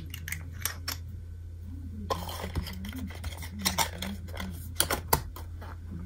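Light clicks, taps and clinks of small hard objects being handled on a tabletop, coming thicker after about two seconds, over a low steady hum.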